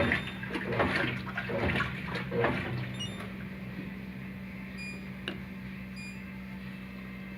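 Brastemp Ative 11 kg top-loading washing machine agitating its wash load: water sloshes in surges for the first two and a half seconds, then the agitation pauses, leaving a steady low hum. A few faint short electronic beeps come in the quieter part.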